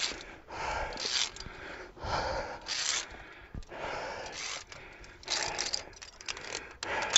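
A climber breathing hard in repeated loud breaths close to a helmet-mounted microphone while climbing a steep via ferrata pitch, with scraping of hands and shoes on the rock.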